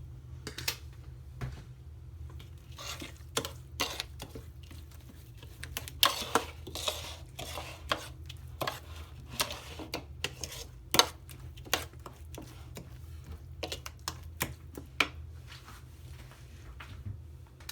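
A spoon clinking and tapping irregularly against a bowl while a thick spice paste is stirred and spooned, over a low steady hum.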